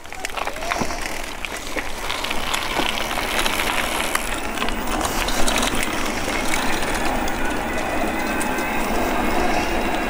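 Bicycle riding noise: tyres rolling on a rough lane, the bike rattling with many small clicks, and wind on the microphone. The noise builds over the first couple of seconds as the bike picks up speed, then holds steady.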